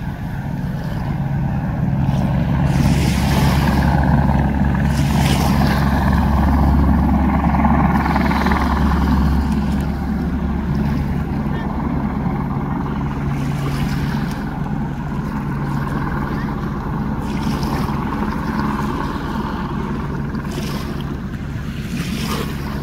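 A steady engine drone, running evenly throughout, with noisy rushing that swells briefly now and then.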